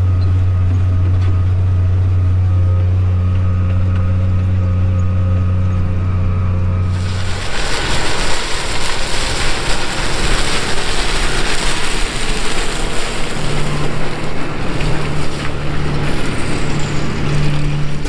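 Tractor engine running steadily as a deep, even drone heard from inside the cab. About seven seconds in, this gives way to wind buffeting the microphone outdoors, with a tractor pulling a stalk shredder running underneath; its steady engine tone comes up plainly near the end.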